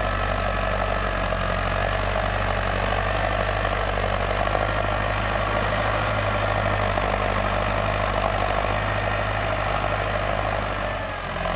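Ford 6610 tractor's four-cylinder diesel engine running steadily under load while it pulls a disc implement through dry soil, easing slightly near the end.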